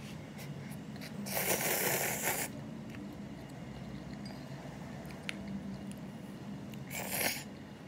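A person slurping ramyeon noodles from hot broth, twice: a long slurp about a second and a half in and a short one near the end, over a faint low steady hum.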